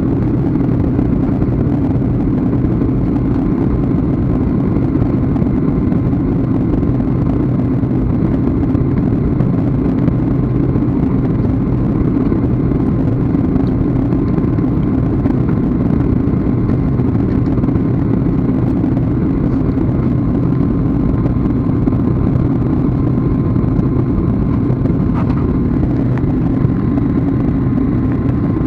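Steady drone of a jet airliner's engines and rushing air, heard inside the passenger cabin at the window, with a faint steady whine above it.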